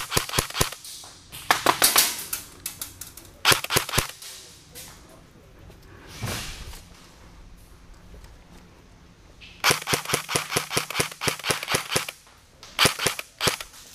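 Airsoft MP5 replica firing in rapid full-auto bursts of sharp clacks. There are several short bursts and one longer burst of about two seconds near the end.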